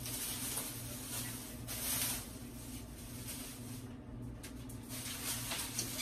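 Rustling and handling noises in a few short bursts, the loudest about two seconds in, over a steady low hum.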